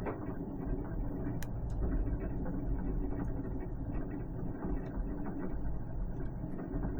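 Steady low hum with faint, scattered light clicks and taps of hands handling a helmet and an adhesive LED light strip.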